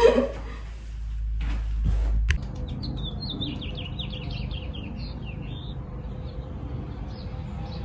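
Small songbird chirping a quick run of short high notes, then a few scattered chirps, over steady outdoor background noise. Before the birdsong, about two seconds of indoor rustling end in a sharp click.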